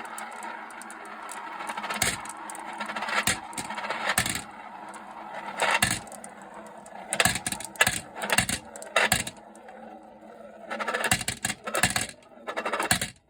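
Marbles rolling round and round in the giant funnels of a marble run, a steady rolling rumble broken by repeated clusters of clacks as marbles drop through and strike each other and the track, more of them in the second half.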